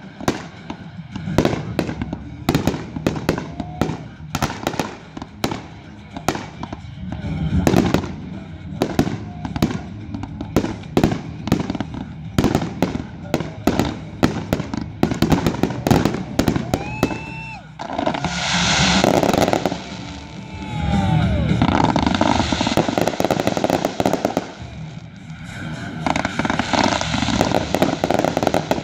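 Consumer aerial fireworks going off in rapid succession: a string of sharp bangs and crackles, with a couple of short whistling tones a little past the middle. Through the second half the sound turns into denser stretches of crackling and hissing.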